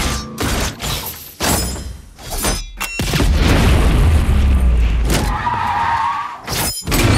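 Action-film trailer sound effects: several sharp smashing and shattering hits in quick succession, then a long heavy low rumble with a wavering squeal partway through. It cuts to a brief silence just before a final hit near the end.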